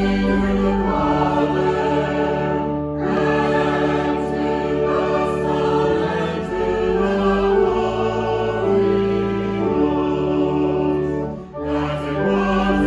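Church music: a choir singing a slow hymn in sustained chords, with a short break between phrases about three seconds in and another near the end.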